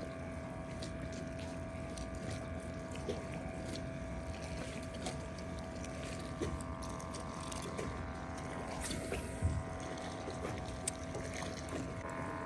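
Boat engine running with a steady hum, its pitch unchanging. Small ticks and a soft knock a little after the middle sound over it.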